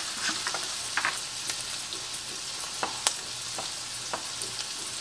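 Sliced sausages sizzling steadily as they brown in butter in a frying pan, with a few scattered sharp taps.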